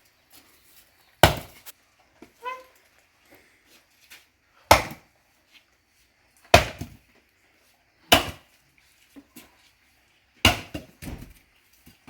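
Firewood knocking: five sharp wooden knocks about every one and a half to two seconds as pieces of wood are struck or set onto a bonfire pile.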